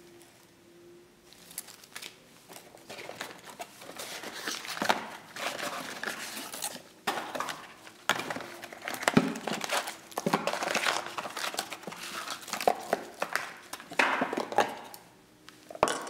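Cardboard packaging and paper being handled: irregular rustling and crinkling, with a few light knocks as cardboard pieces are set down.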